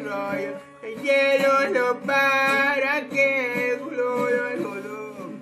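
A man singing in long, drawn-out notes while strumming an acoustic guitar, with a short break in the voice about a second in.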